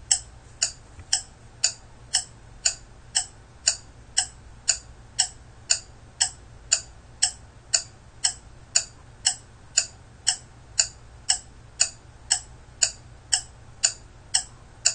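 Ticking-clock sound effect marking a countdown timer, a steady tick about twice a second.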